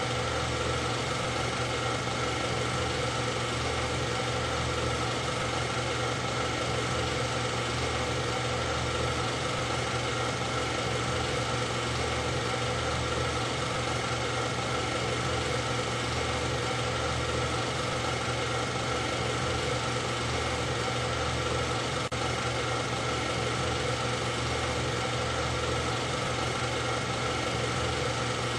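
A steady, unchanging mechanical whir of a running motor, holding one even pitch with no revving or passing engines.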